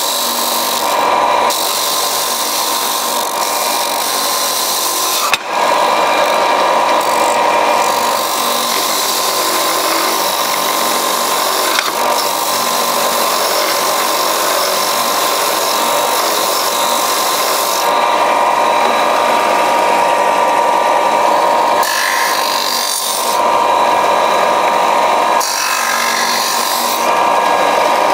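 Benchtop belt-and-disc sander running with a steady motor hum while wood is sanded on it, the gritty rasp of the abrasive on the wood coming and going several times as the piece is pressed on and eased off. A single sharp knock about five seconds in.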